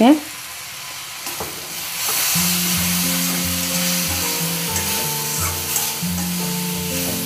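Pieces of elephant foot yam, onion and spice paste frying in a stainless steel kadai, sizzling as they are stirred with a steel ladle to mix in the freshly added spice powders and salt. The sizzling starts about two seconds in.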